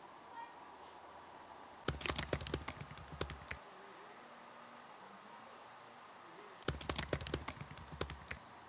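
Two short bursts of crackling clicks, dry leaves and twigs crunching: one about two seconds in, and another about seven seconds in. Between them there is only a faint background.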